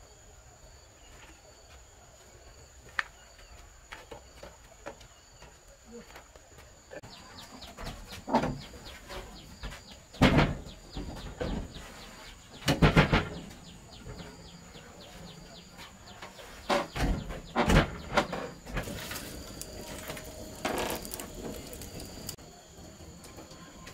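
Wooden folding table being carried and set down on a wooden plank floor: a series of knocks and thumps of wood on wood.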